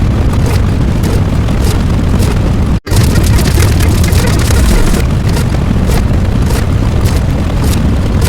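Very loud, heavily distorted booming noise, dense and unbroken except for a split-second cut about three seconds in.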